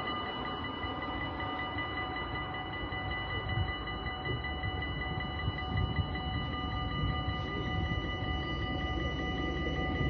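Level crossing bells ringing steadily while a Stadler WINK train approaches, its low rumble growing louder over the last few seconds.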